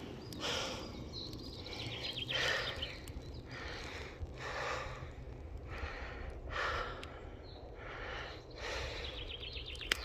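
A hiker's heavy breathing while climbing a steep slope, a breath about every second, with footsteps through forest undergrowth.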